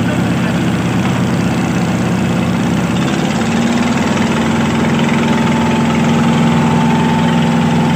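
Boat engine running steadily, its low drone settling onto a slightly different pitch about three seconds in, with a thin higher whine joining about halfway.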